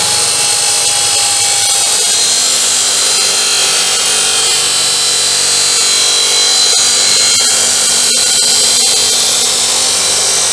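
Powerhouse cut-off saw's 355 mm abrasive disc grinding through square steel tubing under the motor's power: a loud, steady, high-pitched grinding screech throughout.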